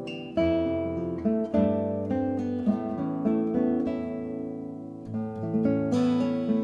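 Acoustic guitar music, with picked notes and strummed chords ringing out one after another.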